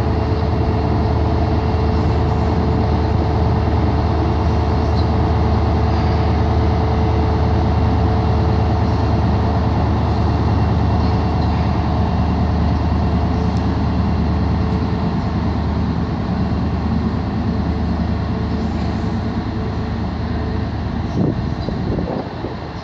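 HST (InterCity 125) class 43 power car's diesel engine running under power as the train pulls away, a steady low drone with a whine over it. The sound fades gradually over the last several seconds as the train draws off.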